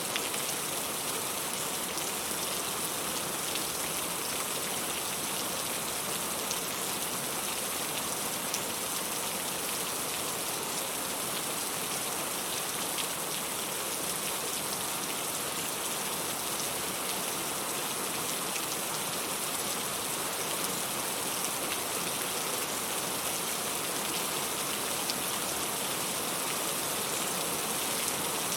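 Steady rain falling, an even hiss with fine scattered drop ticks on a surface.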